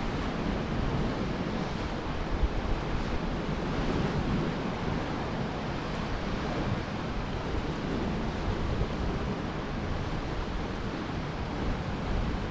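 Sea surf washing steadily against the rocks, with wind noise on the microphone.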